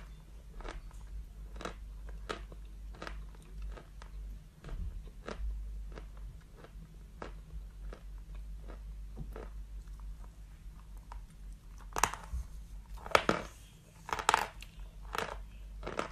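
Chalk being chewed close to the microphone, with a dry crunch roughly every two-thirds of a second. Several louder crunches come near the end.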